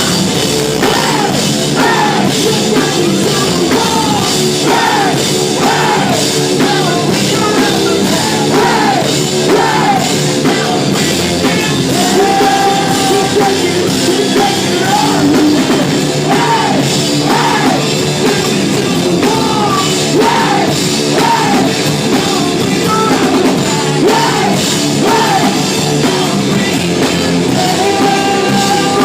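A live rock band playing a loud song: distorted guitars and a drum kit under a sung and shouted lead vocal.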